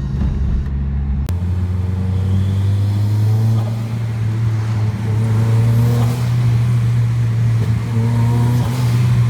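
Turbocharged Mitsubishi Colt CZT engine accelerating twice, heard from inside the car with the window cracked. Each time the throttle is lifted, about six seconds in and again near the end, the blow-off valve vents with a short "pshik" through a homemade aluminium nozzle with a double row of ports that cut the airflow.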